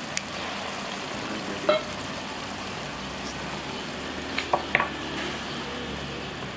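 Pork and green tomato chilli dip sizzling steadily as it fries in oil in a pan, with a few sharp clinks of a utensil against the pan.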